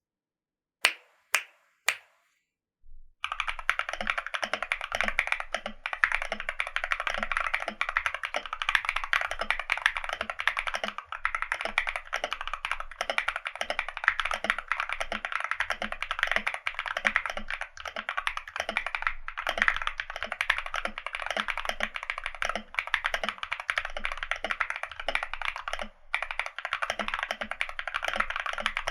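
Typing on a KBD D65 65% custom mechanical keyboard with lubed and filmed Zaku switches on an FR4 plate and ASA-profile keycaps. It opens with three separate keystrokes, then about three seconds in settles into fast, continuous typing.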